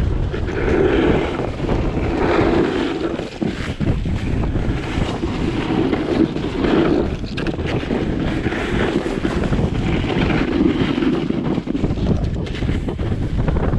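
Wind buffeting the microphone of a camera carried by a moving snowboarder, over the hiss and scrape of snowboards sliding on packed snow. The rushing noise swells and fades every couple of seconds.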